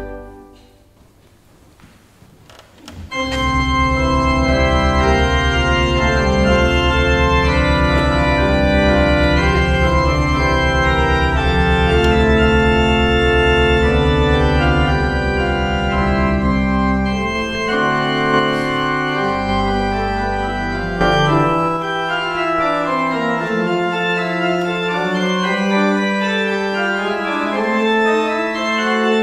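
Church organ playing the postlude at the close of the service: a held chord dies away in the first second, and about three seconds in a loud piece begins with deep sustained pedal notes under chords. Past the halfway point the deep bass mostly drops out and the upper lines move more quickly.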